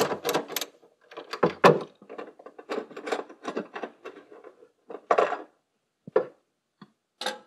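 Hand ratchet clicking rapidly for about half a second as a nut is loosened, then scattered clicks, light knocks and short rattles of tools and loose parts being handled.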